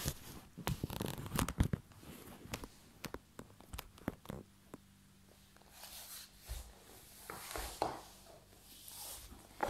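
Handling noise from a phone being set up on a laminate floor: a string of clicks, knocks and scrapes in the first few seconds. Then softer rustling and brushing as a hand moves over the exercise mat.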